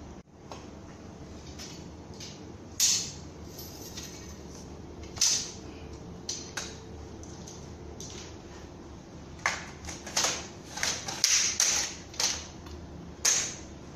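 Baby crib parts being handled and fitted together: scattered clicks, knocks and short scrapes, a few in the first half and a busier run of them in the last four seconds, over a steady background hiss.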